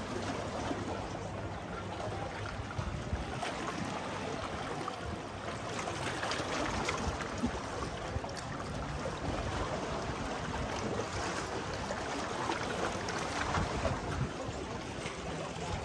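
Small waves lapping at the lakeshore, with wind: a steady wash of water noise, with no clear pitch to it.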